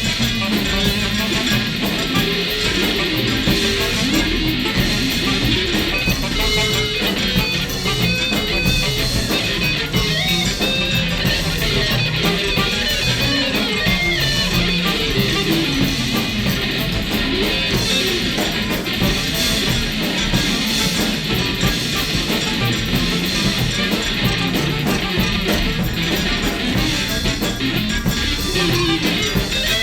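Free-jazz band recording with electric guitar to the fore, playing densely and without pause at an even loudness.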